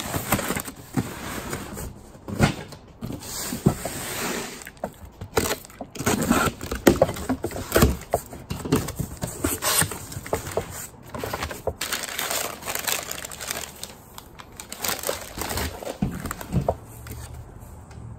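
Cardboard box being unpacked: packing tape slit with a knife, flaps pulled open, and crumpled newspaper and paper wrapping crinkling as it is pulled out, with irregular rustles and small knocks throughout.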